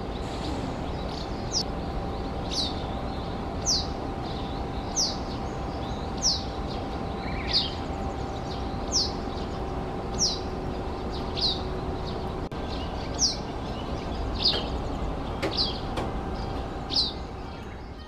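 A bird repeating one short, high, downward-sliding call about once a second, evenly spaced, over a steady background rush.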